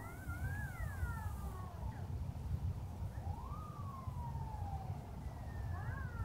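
Faint emergency-vehicle sirens wailing, several slow rising and falling tones overlapping, with a longer rise and fall in the middle. A steady low rumble runs underneath.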